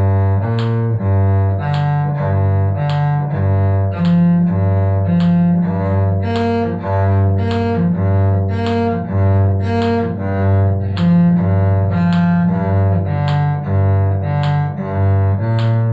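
Cello playing a bowed B-flat major arpeggio in eighth notes, each arpeggio note alternating with the open G string, about two notes a second: a string-crossing exercise.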